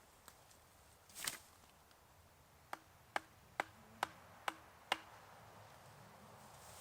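A short rustle about a second in, then six sharp knocks in a steady rhythm, a little over two a second.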